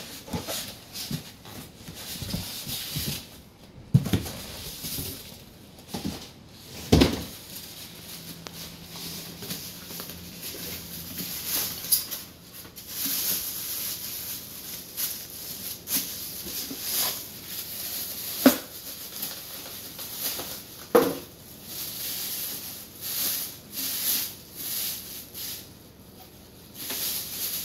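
Cardboard box being opened and a boxed mid-tower PC case slid out, with scraping and a few sharp knocks. From about halfway through, the plastic bag wrapped around the case crinkles and rustles as it is handled.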